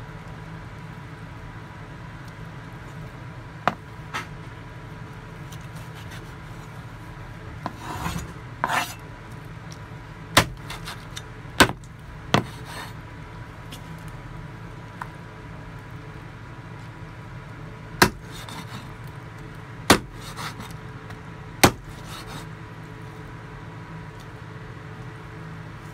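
Steel meat cleaver chopping raw chicken on a wooden cutting board: single sharp chops at irregular intervals, with a short stretch of scraping and rubbing about a third of the way in.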